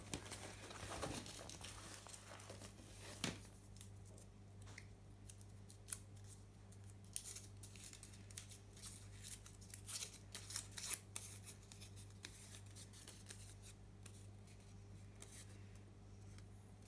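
Faint crinkling and rustling of a crumpled paper slip being unfolded by hand, with scattered light clicks, over a steady low hum.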